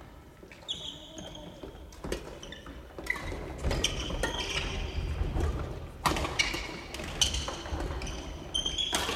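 Badminton rackets striking shuttlecocks in sharp cracks every second or two, mixed with sneakers squeaking on the wooden court floor, all echoing in the large hall.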